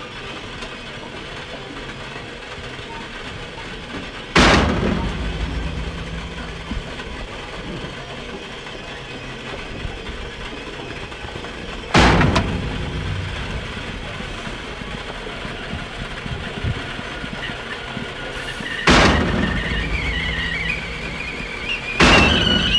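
Stovetop whistling kettle heating toward the boil: a steady rumbling hiss that jumps abruptly louder four times, with a wavering whistle starting to sound near the end.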